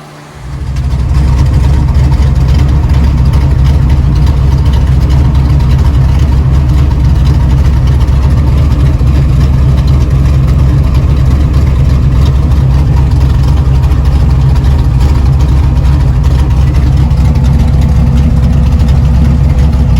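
The truck's electric radiator cooling fans blow hard, and their air rush hits the microphone as a loud, steady roar of wind noise. It starts suddenly about half a second in and holds evenly. The fans are now moving plenty of air to cure the truck's overheating.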